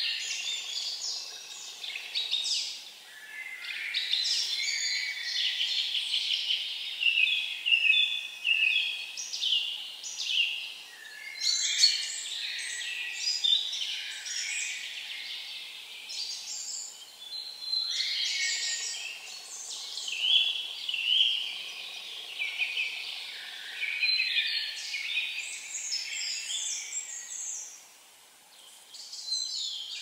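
Songbirds singing: phrase after phrase of quick, varied high notes, each a couple of seconds long, with short pauses between.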